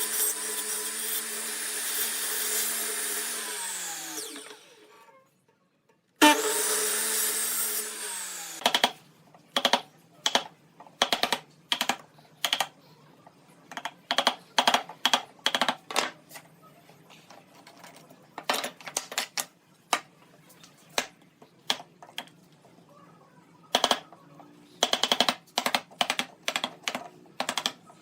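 An electric power tool's motor runs, then winds down about four seconds in. It is briefly run again and winds down a second time. After that comes a long run of sharp, irregular clicks and knocks, some in quick clusters.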